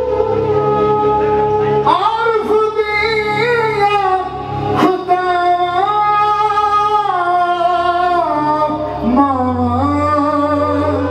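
A male Punjabi folk singer singing live into a microphone, holding long high notes with sliding ornaments between them, over a steady low instrumental accompaniment.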